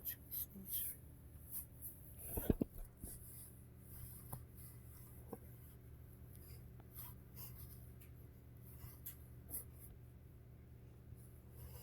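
A series of short, scratchy rustles, with one louder knock about two and a half seconds in.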